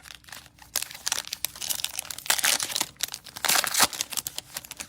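Foil trading-card pack wrapper being torn open and crinkled by hand, in a run of crackly rustles that are loudest around the middle and near the end.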